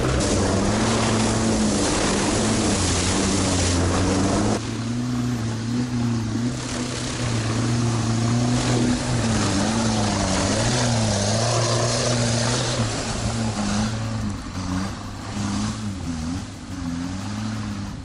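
Sherp all-terrain vehicle's diesel engine running as it drives, its pitch wavering up and down as the throttle changes in the second half. A loud rushing noise lies over it for the first four and a half seconds, then drops off abruptly.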